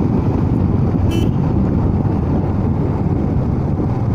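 Royal Enfield Himalayan's single-cylinder engine running steadily as the motorcycle is ridden, with wind noise on the microphone. A brief high chirp comes about a second in.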